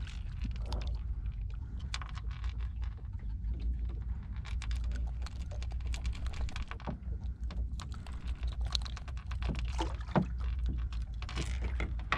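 Light, irregular clicks and taps over a steady low rumble.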